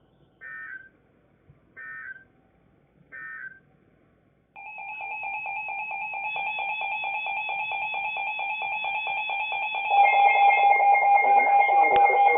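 Emergency Alert System end-of-message code on NOAA Weather Radio: three short bursts of data tones about 1.4 seconds apart. About 4.5 seconds in, a steady electronic alarm tone with a fast pulsing buzz starts, and it jumps louder about ten seconds in.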